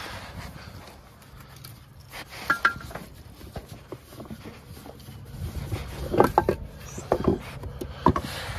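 A spin-on John Deere oil filter being unscrewed by a gloved hand: scattered clicks, knocks and scrapes as the metal canister turns and is handled, loudest about two and a half seconds in and again around six to seven seconds in.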